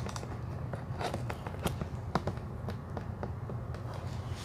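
Hands working at a taped cardboard box: scattered light taps, clicks and scrapes of fingers on cardboard, over a steady low hum.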